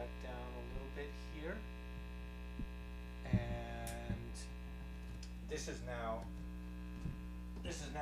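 Steady mains hum from a plugged-in Fender Twin Reverb guitar amp left idling with no notes played, with faint voices in the background now and then.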